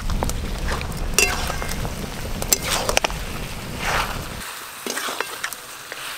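Mutton pieces sizzling in mustard oil in an aluminium wok, being stirred and turned with a metal spatula that scrapes and clicks against the pan, frying off freshly added ginger-garlic paste. A low rumble underneath stops suddenly about four seconds in.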